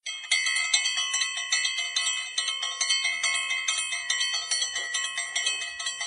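A hand-held bell rung over and over, about two to three strokes a second, each stroke ringing on into the next.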